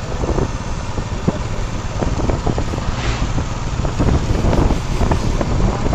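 Wind buffeting the microphone over a steady low rumble, with scattered light knocks and a brief hiss about three seconds in.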